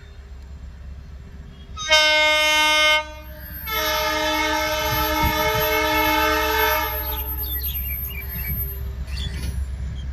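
Horn of an approaching Indian Railways locomotive. It gives a short blast about two seconds in, then a longer blast of about three seconds on a different, lower-sounding chord, which fades out, all over a steady low rumble.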